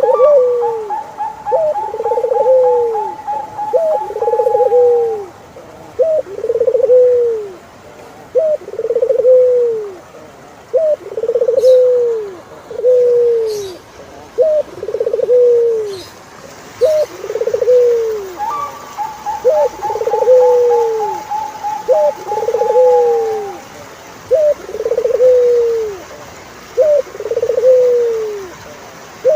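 Turtle dove cooing over and over: a short rising note and then a longer arched note, repeated about every two seconds. Twice a long rolling trill that falls slightly, each about four seconds long, sounds over the cooing.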